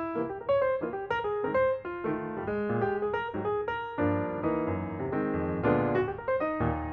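Background piano music, a melody of struck notes that turns to fuller chords about halfway through.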